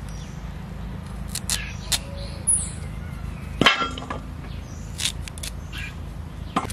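Raw giant taro (mankachu) being sliced and its peel cut away against an upright bonti blade: a series of short, sharp crisp cuts, the loudest about halfway through. A steady low rumble runs underneath.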